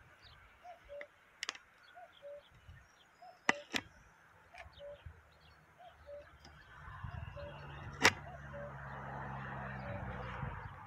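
A bird repeating a short low call about twice a second, with a few sharp clicks, the loudest about eight seconds in. From about seven seconds a low hum and rushing noise build up, then stop abruptly just before the end.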